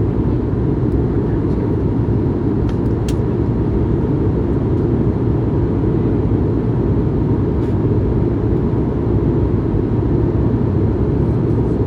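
Steady low rumble of engine and airflow noise inside the cabin of an Airbus A220-100 climbing out, its Pratt & Whitney PW1500G geared turbofans at climb power, with a faint steady hum above it.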